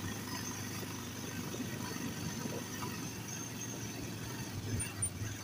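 Motorcycle engine running steadily while the bike is ridden, with road noise.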